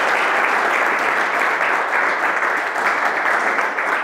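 An audience applauding steadily at the end of a talk.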